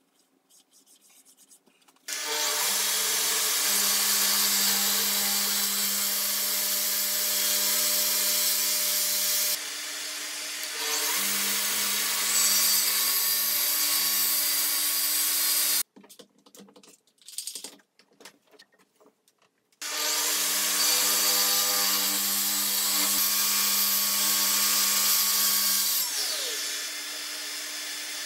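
DeWalt plunge track saw running along its guide rail and cutting through a wooden worktop panel, a steady motor whine under load. It starts about two seconds in and stops suddenly about halfway, followed by a few seconds of light handling sounds, then runs and cuts again, a little quieter near the end.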